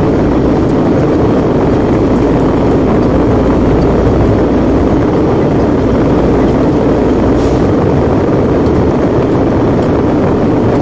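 A ten-wheeler truck on the move: a loud, steady rumble of engine and road noise.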